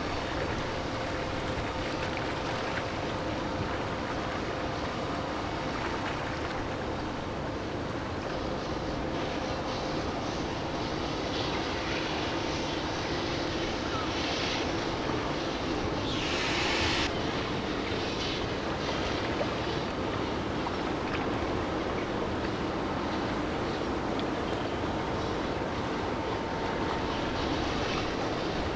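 A steady vehicle engine drone with a couple of steady hum tones in it, and a brief hiss about sixteen seconds in.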